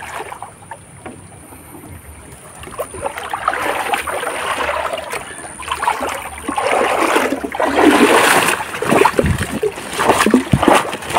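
River water splashing and sloshing as someone wades and scoops in the shallows. It is irregular and quiet at first, grows from about three seconds in, and is loudest in the second half, with a couple of heavier splashes near the end.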